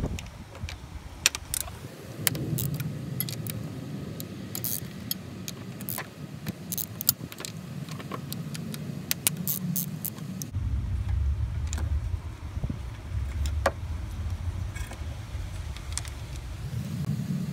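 Socket ratchet on a long extension clicking in quick, irregular runs while a bolt on the front VTEC solenoid assembly is turned. There is a low rumble underneath, louder from about halfway.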